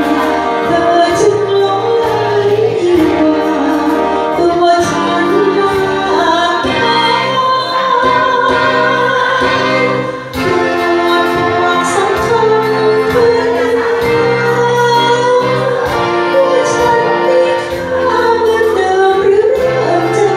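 A woman singing a melody with vibrato into a handheld microphone, over backing music with a steady beat.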